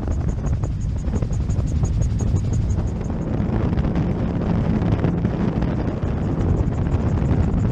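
Magni M16 gyroplane in flight, heard from its open cockpit: a steady low drone of rotor and engine with wind rushing over the microphone.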